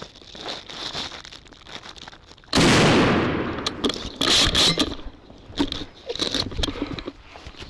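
A Mossberg 500 pump shotgun fires a single shot about two and a half seconds in, very close and loud, with the blast trailing off over about a second. Scattered crackling and rustling in the brush follow.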